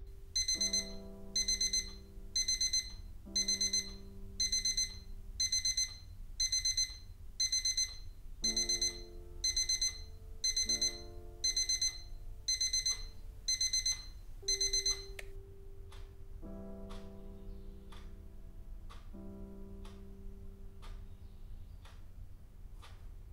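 Digital alarm clock going off: groups of short, high electronic beeps repeating about once a second, stopping about 15 seconds in. Soft background music with slow, sustained notes plays underneath.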